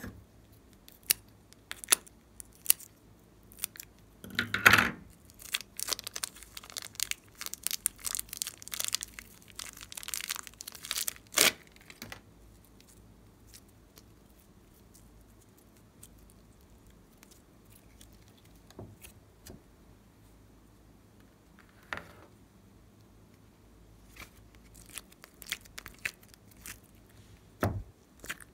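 Sticky glossy slime being squeezed from a piping bag and stretched and folded by hand. It makes a dense run of wet crackles and pops from about four seconds in to about twelve, then mostly quiet with a few scattered clicks, and a soft thump near the end.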